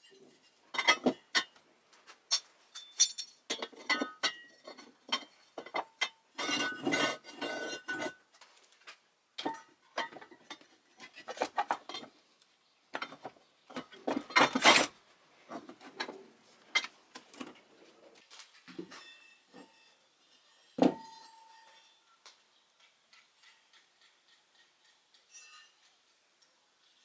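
Irregular clinks, knocks and clattering of hard parts being handled and set down. The loudest clatter comes about halfway through. About 21 s in there is one sharp knock that rings briefly, like a metal part struck, and after that only faint ticks.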